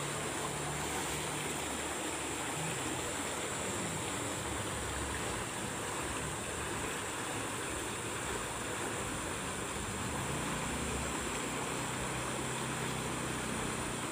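Steady rush of water flowing along an irrigation channel.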